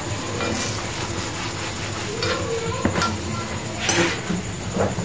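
Paratha frying on a hot iron tawa, a steady sizzle, with a few sharp metal clicks from the tongs against the griddle about three and four seconds in.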